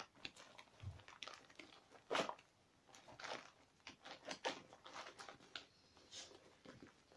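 Faint handling of a fabric pack pouch, with irregular rustles, small clicks and crinkles as items are moved about in it, and one louder scrape about two seconds in.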